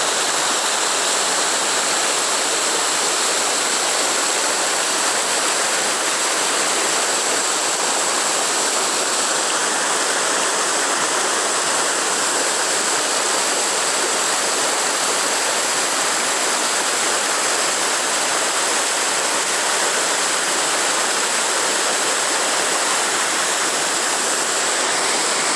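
Waterfall rushing: a loud, steady roar of falling water that does not change, with a thin steady high-pitched tone above it.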